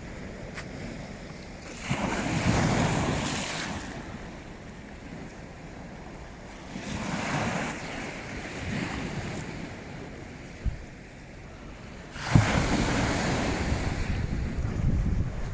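Wind buffeting the microphone over waves washing on the shore. Loud gusts swell up about two seconds in, again around seven seconds, and from about twelve seconds on.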